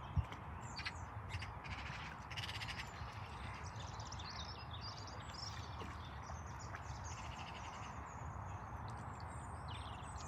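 Birds calling over a steady outdoor hiss: a few harsh, crow-like caws in the first three seconds, then scattered small high-pitched chirps. A single sharp click sounds right at the start.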